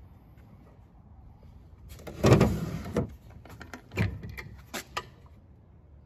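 A wooden drawer of an antique sideboard sliding shut, ending in a knock. It is followed by a few sharp knocks and clicks as a wooden cabinet door is handled and swung open.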